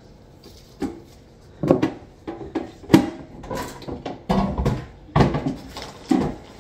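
Kitchen handling sounds: a plastic bag of shredded cheese crinkling as it is handled, mixed with knocks and clatter of utensils and containers on the counter. These come as a string of separate sharp sounds, the loudest about three seconds in.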